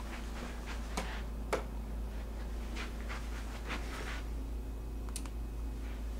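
Two sharp clicks about half a second apart, a second in, then a few fainter ticks: the switch for add-on LED lights being flipped on.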